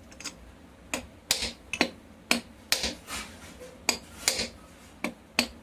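About ten light, sharp taps, often in pairs, on a ceiling fan's aluminium body and cover, knocking the cover gently into its seat. The taps are kept light because hard blows can crack the aluminium body.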